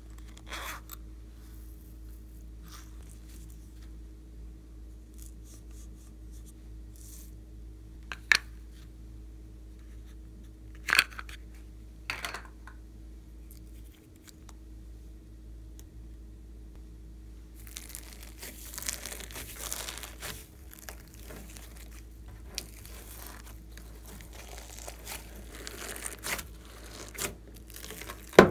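Hands squishing and folding a large batch of slime topped with sequins and glitter: a continuous sticky, crackly crinkling that starts about two-thirds of the way in. Before that come a few separate sharp clicks as small plastic containers of glitter are handled and opened.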